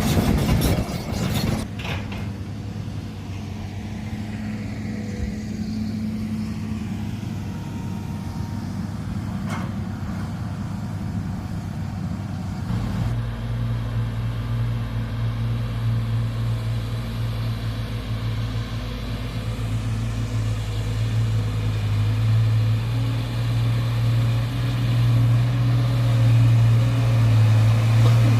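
Excavator's diesel engine running steadily with a low hum, after a loud rough noise in the first second or so. About 13 seconds in the engine note changes and grows heavier and louder toward the end.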